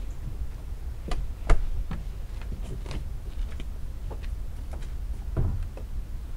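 Footsteps in flip-flops on a wooden deck: a run of irregular slaps and knocks, the loudest about a second and a half in, over a low steady rumble.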